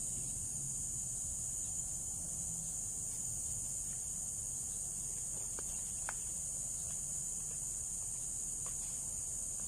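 Steady high-pitched chorus of insects, crickets, with a few faint ticks midway and near the end.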